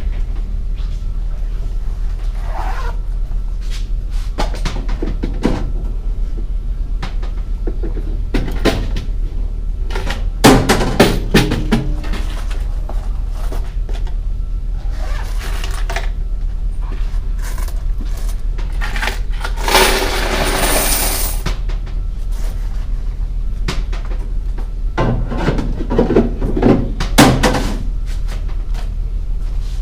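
Background music, with intermittent clattering and knocks, and a longer rushing noise about twenty seconds in.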